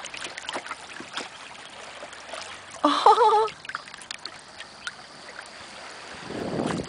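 Small water splashes and lapping with scattered clicks and knocks around a small boat. About three seconds in, a loud, short wavering cry cuts through, and near the end a low rush builds.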